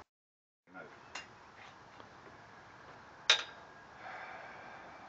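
A bottle of Mad Dog 20/20 being handled and chugged: a sharp click about three seconds in, then a faint steady gurgle as the drink is downed.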